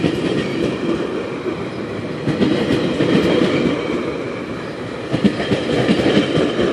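GO Transit bilevel passenger coaches rolling past close by: a steady rumble of wheels on rail, with clickety-clack over the rail joints that grows more frequent about five seconds in.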